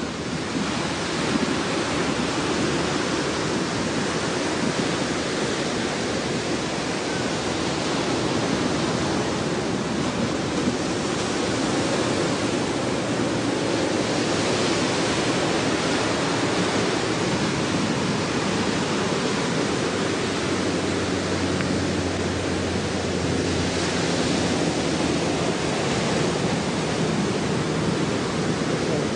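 Steady, even rushing noise with no breaks.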